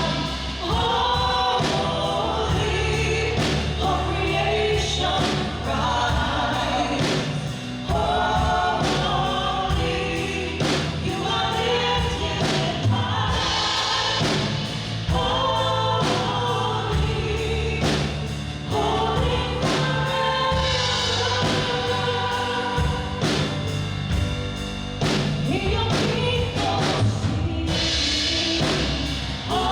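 Congregational worship song: a band with steady bass and drums, with group voices singing over it.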